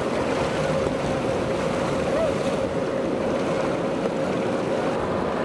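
A boat's outboard motor running at a steady pitch, under a steady rush of wind and surf.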